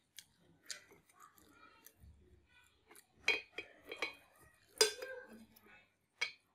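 A few sharp clicks of wooden chopsticks against a metal tray of rice paper salad, the loudest about five seconds in, with soft chewing sounds in between.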